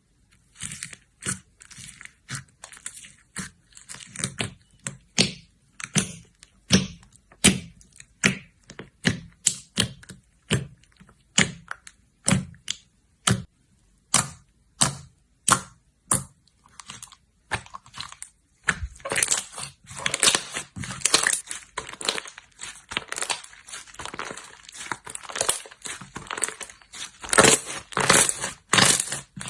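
Slime being pressed and squeezed, giving sharp crackling pops about one or two a second, which turn into denser, continuous crackling about two-thirds of the way in.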